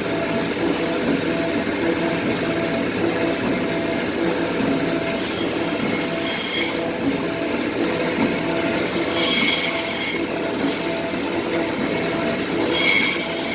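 Industrial four-roll frozen-beef slicing machine running with a steady, rhythmic mechanical hum. Three times a high-pitched screeching scrape of about a second rises over it as the blade cuts through the frozen beef rolls.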